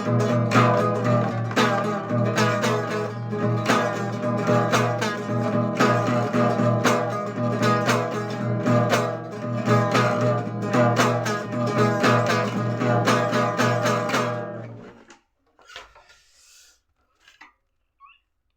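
Guitar music with strummed chords in a steady rhythm, which stops about fifteen seconds in, leaving near silence with a few faint small sounds.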